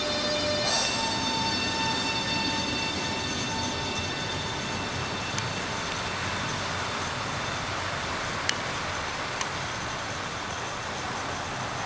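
Allegro Sm6 electric train moving at the station: the steady whine of its electric traction equipment steps up in pitch just under a second in and fades under rising rolling noise. Three sharp clicks come in the second half.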